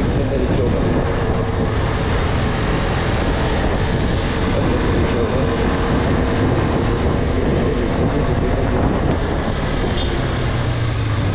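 Motorcycle riding along at steady speed, its engine running under a heavy, even rush of wind on the helmet microphone.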